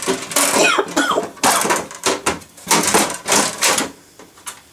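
Handling noise from an open metal server case: a bundle of power-supply cables being pulled through the chassis and metal parts knocking and scraping, in a run of short rustling, clattering bursts with a brief squeak about half a second in.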